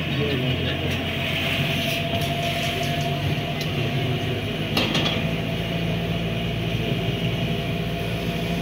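Steady engine rumble of slow-moving road traffic, with a few faint knocks.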